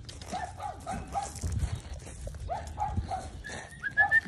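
Mini sheepadoodle puppies yipping in short, high cries, in two little runs. Near the end comes a fast string of higher, rising chirps.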